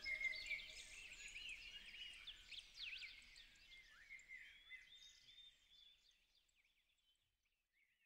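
Several songbirds chirping and trilling in a busy chorus, fading out to near silence in the last second or two.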